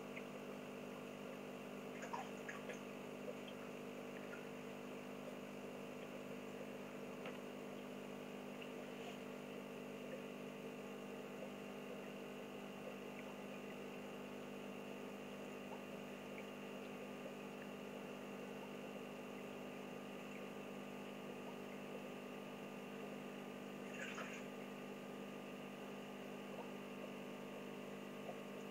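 Aquarium pump humming steadily, with water trickling and a few faint drips, the clearest about two seconds in and near the end.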